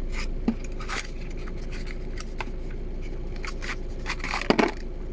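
Packaging being handled as items are taken out of a box: scattered light clicks and rustles of plastic and cardboard, with a louder crinkle about four and a half seconds in, over a faint steady hum.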